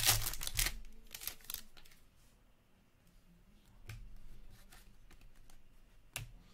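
Foil wrapper of a hockey card pack being torn open and crinkled during the first couple of seconds, then cards sliding against each other as they are flipped through, with a few light clicks.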